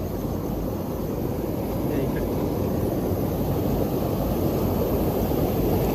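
Fast-flowing river water rushing over rocks, a steady low rush that grows slightly louder toward the end.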